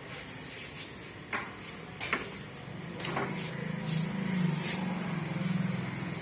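A few scattered sharp clicks and knocks, with a low steady hum that comes up about halfway through and grows a little louder.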